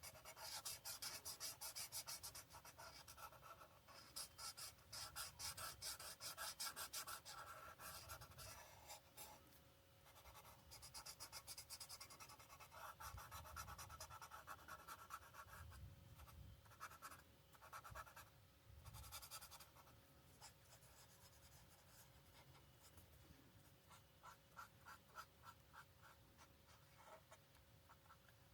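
Alcohol marker tips scratching quickly back and forth across paper in colouring strokes, coming in bursts with short pauses and growing fainter and sparser in the second half. A faint steady hum lies under it.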